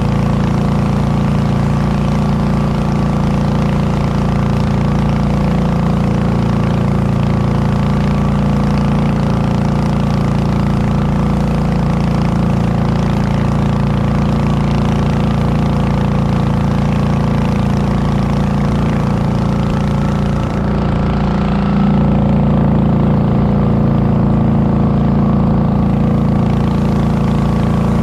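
A motorboat's engine running steadily aboard the boat, a loud, even drone that grows slightly louder about three quarters of the way through.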